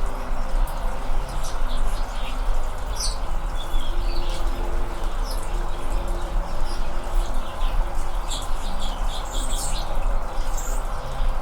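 Anna's hummingbirds giving short, high chip calls, scattered irregularly and often several in quick succession, over a steady low background rumble.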